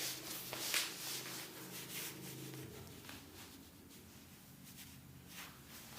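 Soft rustling and rubbing of clothing as a person shifts into position, in scattered short bursts, over a low steady hum that drops about halfway through.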